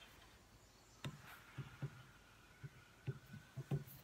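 A scattering of soft knocks and taps from hands working on the table saw's top while the saw is switched off. They start about a second in and come unevenly, the loudest near the end.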